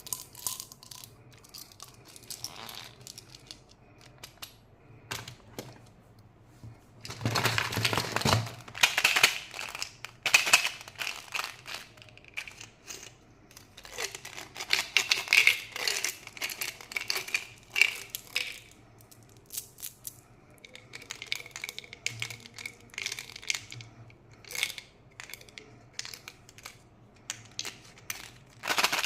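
Candy wrappers crinkling and being torn open in irregular bursts of crackling and clicks, with louder stretches about a quarter of the way in and around the middle.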